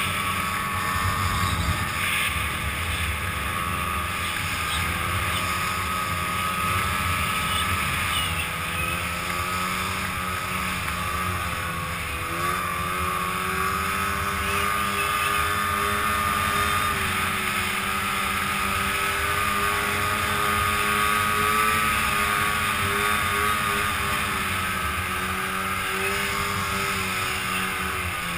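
Arctic Cat Crossfire 700 snowmobile's two-stroke twin engine running under way, its pitch rising and falling with the throttle.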